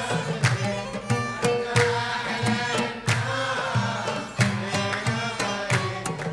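Traditional Gulf music in the Bahraini sawt style: held melodic notes over irregular sharp hand-drum strokes.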